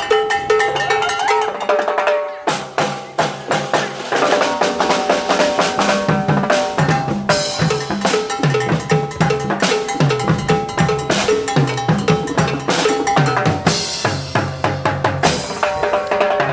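Loud, upbeat music with a drum kit and a bass line under a melody, beating steadily. It drops out briefly about two seconds in, then comes back with the bass line.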